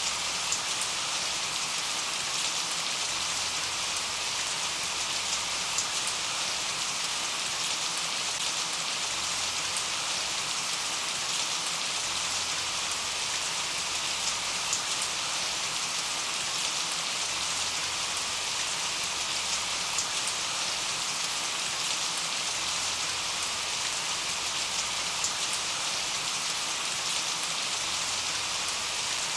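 Steady rain falling on a surface, an even hiss with scattered individual drops ticking through it.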